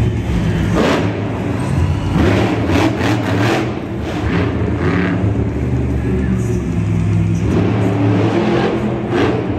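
Monster truck's modified engine revving hard through a loud, unmuffled exhaust, surging up and down several times as the truck drives.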